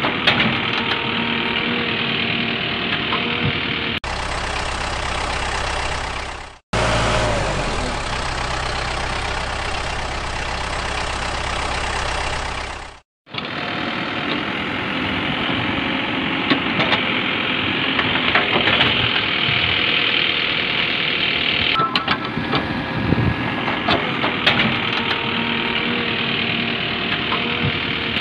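Steady engine sound of a heavy vehicle, likely a dubbed sound effect. Between about four and thirteen seconds in it switches abruptly to a different engine recording, with two brief dropouts. Small clicks and rattles of gravel pour from a toy excavator bucket into a plastic toy dump truck.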